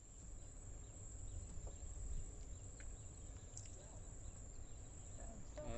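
Open-air river ambience: a low rumble of wind on the microphone with a steady high-pitched insect drone and a few faint ticks; a voice starts near the end.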